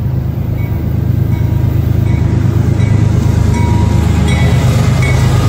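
Freight train's diesel locomotives passing close by: a deep, steady engine rumble growing louder, with the rush of the train over the rails.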